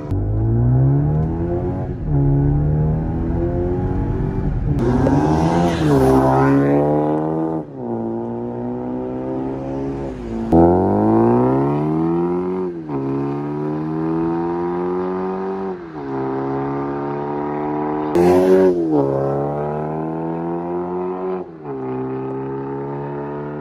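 BMW X4 G02's 2.0-litre turbocharged four-cylinder engine through an aftermarket RES valved exhaust, accelerating hard through the gears. The revs climb and drop back at each upshift, many times over. Two short loud rushes of noise come about six seconds in and again near eighteen seconds.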